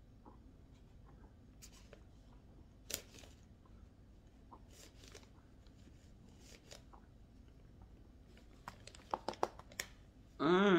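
A woman sipping through a plastic straw from a paper drink carton: scattered small clicks, sips and crinkles. A few sharp lip smacks come near the end, then a short loud vocal sound from her.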